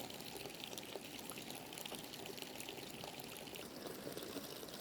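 Water running steadily, a continuous trickle and splash.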